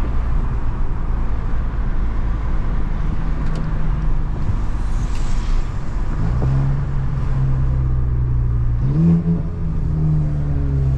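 Volkswagen Jetta 2.0 TSI turbocharged four-cylinder with a Stage 2 tune, downpipe and straight-pipe tail running under way, with a steady low drone and road noise. About six seconds in the engine note comes up, and near nine seconds it climbs again as the car accelerates.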